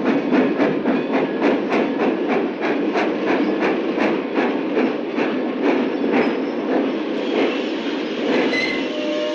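Steam locomotive moving along the track: a sharp rhythmic beat about three times a second over a steady rumble, with the beats fading out after about six seconds.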